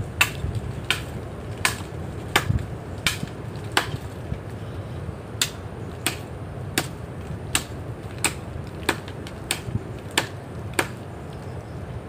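Repeated chopping blows into the trunk of a dead, rotting coconut palm as it is cut down: about fifteen sharp strikes, each well under a second apart, with a short pause about four seconds in.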